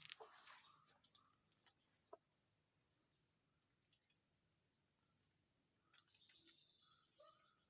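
Faint, steady high-pitched chorus of insects, with a few soft clicks.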